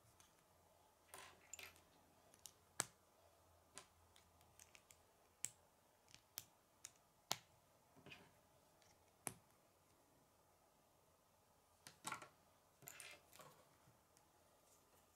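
K'nex plastic rods and connectors clicking and snapping as they are handled and fitted together: irregular sharp clicks, with a few short spells of handling noise.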